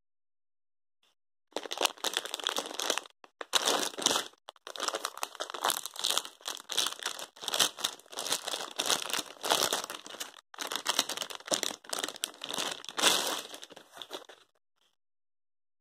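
Clear plastic bag around a fabric pouch crinkling as hands handle and unwrap it. It starts about a second and a half in, pauses briefly twice and stops about a second before the end.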